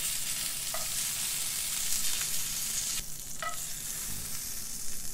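Pieces of fish frying in hot oil in a skillet, sizzling steadily. The sizzle weakens about three seconds in. A couple of light clicks come from the metal tongs.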